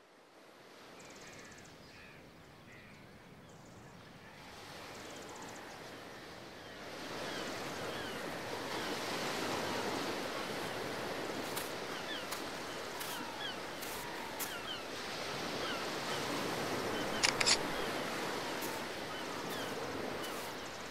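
Sea surf washing onto a sandy beach, a steady rushing that fades up from silence over the first several seconds. Short high chirps are scattered through it, and a few sharp clicks come about seventeen seconds in.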